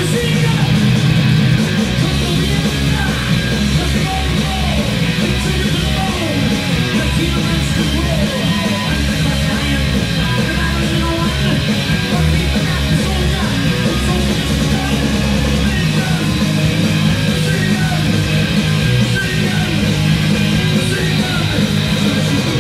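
Heavy metal band playing live: distorted electric guitars over bass and drums, with gliding guitar lines in the middle.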